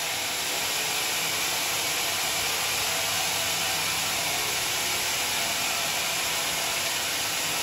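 American-made band saw blade on a band sawmill cutting lengthwise through a rotten Johar log, a steady unbroken hiss of the blade in the wood.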